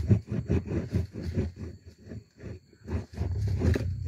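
Rapid muffled thumps and scrapes, about four or five a second, from sticks being jabbed and worked inside a hollow log, easing off briefly around the middle.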